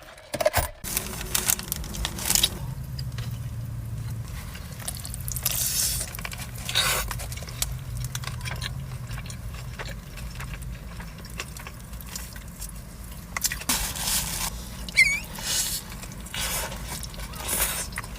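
Close-miked eating: a person chewing and crunching food, with irregular crunches and bursts of noise every second or two.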